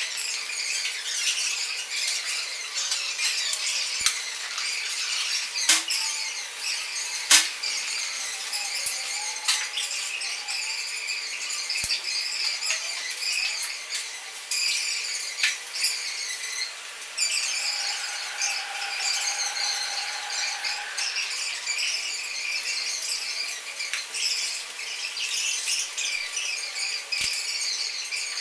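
Broken drinking-glass pieces scraping and clinking against each other as they are handled: a continuous high squeaking and grating, broken by occasional sharp clicks.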